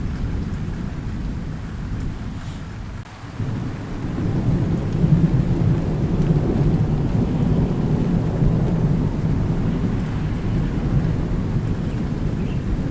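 Thunderstorm: rolling thunder rumbling over steady rain. The rumble drops away briefly about three seconds in, then a new, louder roll of thunder builds and carries on to the end.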